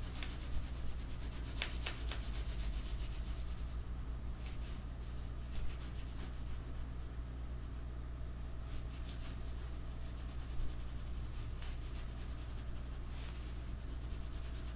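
A drawing tool rubbing and scratching on paper in irregular shading strokes, over a steady low hum.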